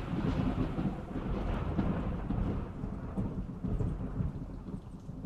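Rolling thunder from a thunderstorm, a deep rumble that slowly fades away.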